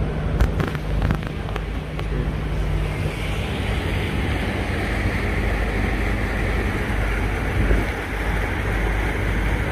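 A river cruise boat's engine running steadily under the rushing wash of its propeller wake, with wind buffeting the microphone. The water noise grows louder from about three seconds in, and a few sharp knocks sound in the first two seconds.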